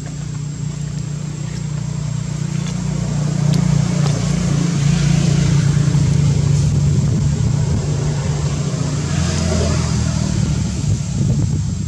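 A steady low engine drone, like a motor vehicle running nearby, growing louder over the first few seconds and easing off near the end.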